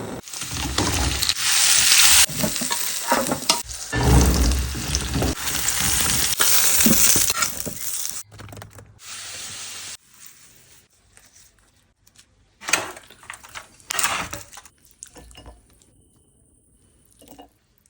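Food sizzling as it fries, with stirring and knocks of a utensil; the sizzling fades out about halfway through, leaving a few separate knocks.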